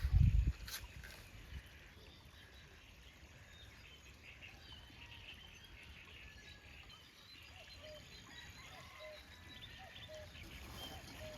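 Birds calling with short, scattered chirps over a quiet rural background, after a dull low thump right at the start.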